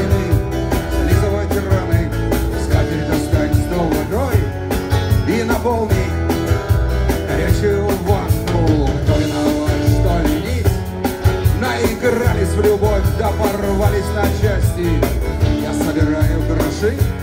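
Live rock band playing: electric guitars and drum kit, with a bowed violin.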